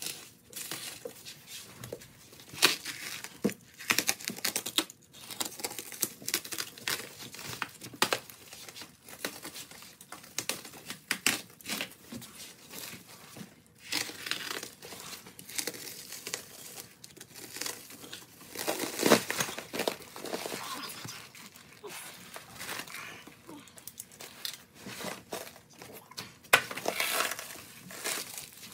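Clear plastic stretch wrap crinkling and ripping as it is cut with a utility knife and pulled off a pair of motorcycle wheels, in irregular bursts.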